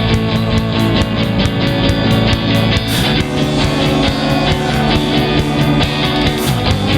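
Instrumental rock music: electric guitar and bass over drums keeping a steady beat, the chords shifting about three seconds in and again near the end.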